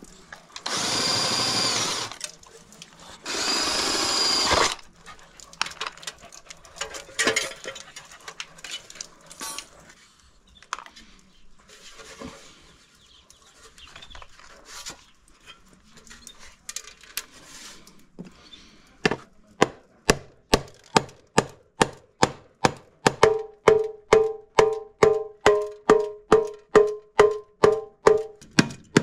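A cordless drill runs in two short bursts, drilling into the end cap of a KTM 690 SMC's stainless exhaust silencer, followed by small handling clicks. From about two-thirds of the way in, a rubber mallet strikes the silencer in a fast, even series, about three blows a second, each blow ringing metallically. The owner finds this silencer completely empty inside.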